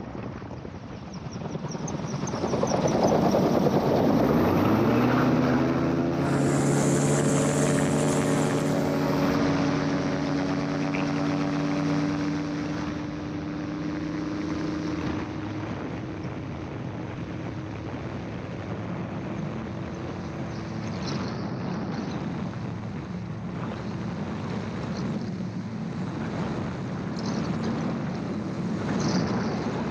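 Gyroplane engine and pusher propeller opening up to full power for a takeoff run, the pitch rising over a couple of seconds and then holding steady. Later the engine tone is buried under rushing air noise as the gyroplane lifts off and climbs away.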